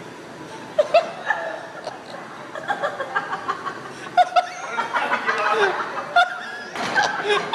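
People laughing and giggling in repeated short bursts.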